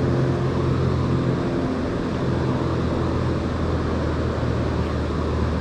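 A steady, low engine-like hum holds at an even pitch over the constant rush of river water.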